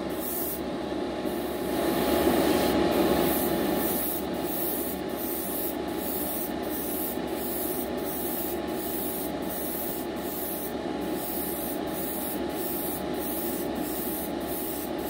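Airbrush spraying paint, its hiss pulsing about twice a second, over the steady hum of a paint booth fan.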